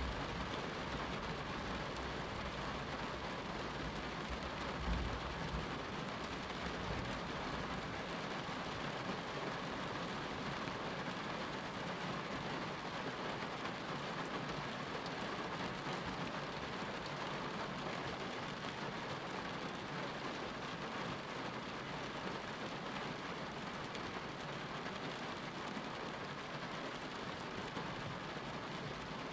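Steady rain hiss, with a brief low thump about five seconds in.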